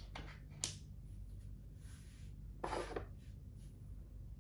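Makruk pieces being moved and set down on the board: a sharp click a little over half a second in, then a short scrape as a piece is slid into place near three seconds in.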